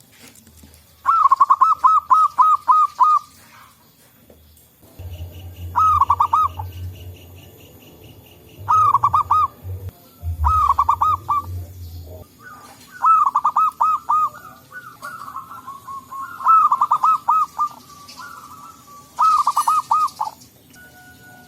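Zebra doves (perkutut) singing: about eight bursts of quick, repeated cooing notes, with one bird answering another. A low rumble runs under the calls through the middle of the stretch.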